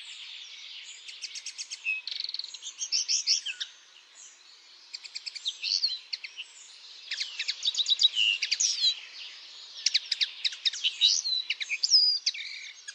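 Birdsong: varied phrases of rapid trills, chirps and whistles, with brief lulls about four seconds and six and a half seconds in.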